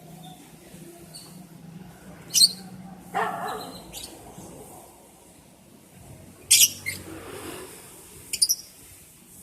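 Lovebirds giving short, shrill, high-pitched chirps, three times, with a lower, louder call about three seconds in.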